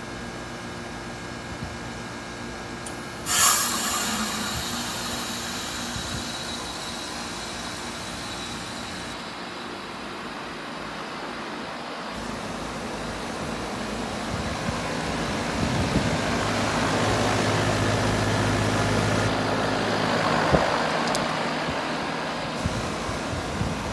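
Carrier Comfort Series heat pump in its defrost cycle: about three seconds in, the reversing valve shifts with a sudden loud whoosh of refrigerant, followed by a hiss that slowly fades. Later a low steady hum builds as the unit keeps running.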